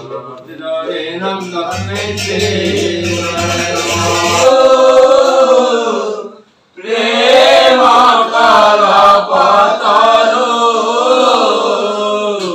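Group of men singing a devotional chant together, loud throughout, breaking off briefly about halfway through before the singing starts again.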